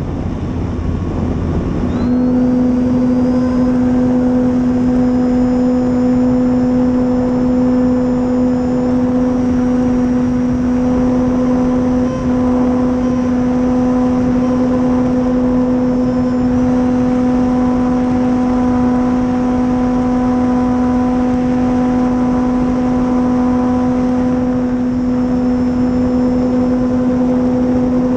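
Dual Sky 480 brushless electric motor and propeller of an RC warbird in flight, a steady drone with a faint high whine over a rushing hiss. The drone jumps up about two seconds in as the throttle opens, then holds steady.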